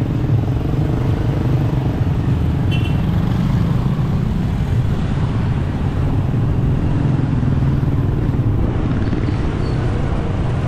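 Motorcycle engine running steadily while riding in traffic, with road and wind rush throughout.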